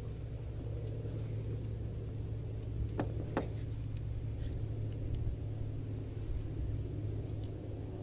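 Steady low hum of an idling vehicle engine, with two light clicks about three seconds in.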